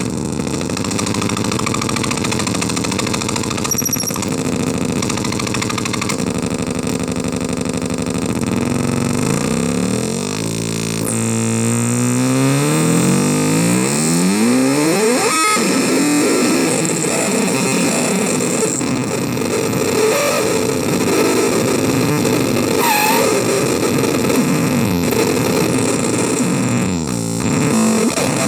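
CMOS-based harsh noise synth running continuously, a dense, distorted wall of noise with shifting pitched layers. About ten seconds in, a stack of tones sweeps upward and converges around the fifteen-second mark before the noise thickens again, with brief squeals later on.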